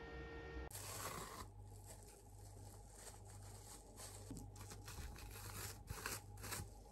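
Faint, irregular rustling and crinkling, a few short scratchy strokes at a time, coming more often near the end.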